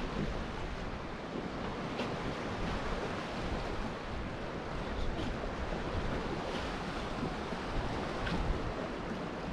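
Baltic Sea waves washing, with wind blowing across the microphone: a steady rushing noise.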